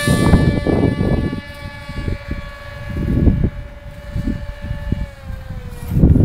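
Electric propeller motor of a radio-controlled FPV plane whining at a steady high pitch under full throttle as it climbs away after a hand launch; the pitch drops slightly about five and a half seconds in. Gusts of wind buffet the microphone.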